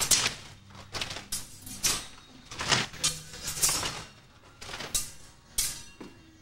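Steel chain whip and broadsword swishing through the air: a series of sharp whooshes, about seven, at uneven intervals as the form is performed.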